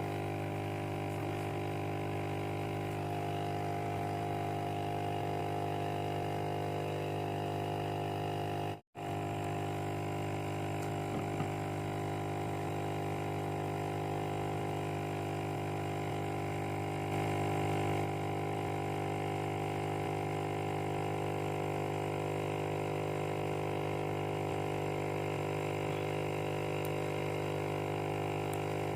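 Small electric motor humming steadily at a constant pitch, cut off for an instant about nine seconds in.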